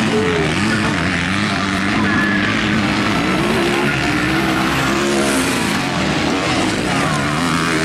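Motocross dirt bike engines revving as they race, the pitch rising and falling again and again with throttle and gear changes.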